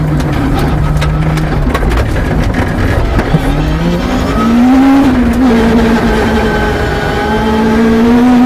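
Peugeot 306 rally car's engine heard from inside the cabin on a gravel stage. It holds steady, eases off about two seconds in, then revs up hard again about four seconds in and climbs once more near the end. Sharp ticks of gravel hit the car throughout.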